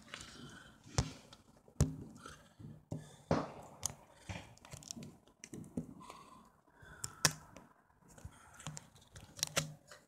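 Scattered sharp clicks and knocks over rustling, loudest about a second in, just before two seconds, past seven seconds and near the end.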